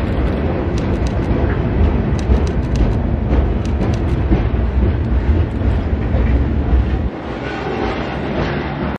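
Rail work train's cars rolling past at close range: steel wheels rumbling, with sharp clicks and clacks over the rail. The heavy rumble drops off about seven seconds in as the last car, an LB Foster rail-unloading cab car, goes by.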